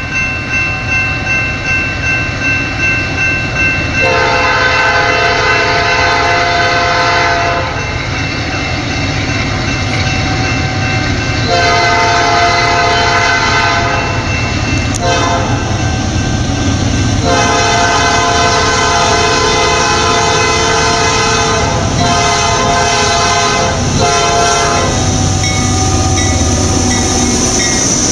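Multi-chime air horn of a Norfolk Southern diesel freight locomotive sounding the grade-crossing signal, long, long, short, long, under the steady rumble of the approaching train. Near the end the locomotives and hopper cars pass close by, wheels rumbling on the rails.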